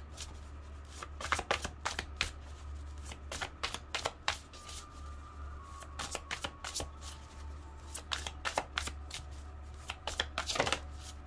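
A deck of oracle cards being shuffled by hand: a quick, irregular run of short card slaps and flutters. A steady low hum sits underneath.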